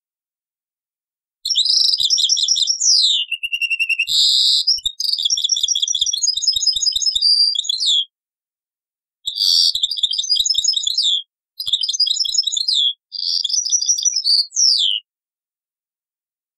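European goldfinch singing: several phrases of rapid, high twittering, trills and quick gliding notes. They are broken by short gaps of dead silence, and the song starts about a second and a half in and stops near the end. The recording is dubbed from an old cassette tape.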